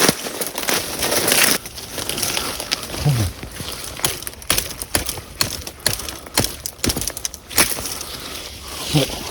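Footsteps crunching through leaf litter and twigs on a wooded slope: a dense rustle for the first second and a half, then irregular sharp crunches and snaps.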